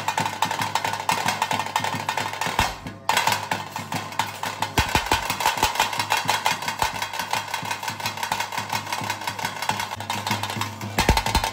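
Fast, dense drumming and percussion with a sustained pitched tone held above the beat. The kind of percussion music played at a Panjurli daiva kola. It breaks off briefly about three seconds in and changes near the end.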